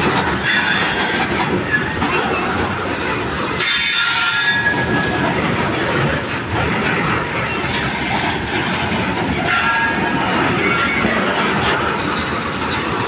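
Loaded coal-train hopper wagons rolling past close by: a steady rumble of steel wheels on the rails, with short high-pitched wheel squeals about a second in, around four seconds in and again near ten seconds in.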